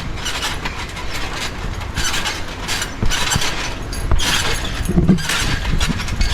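People bouncing on a backyard trampoline: the mat thumps and the springs rasp in repeated bursts, roughly once a second.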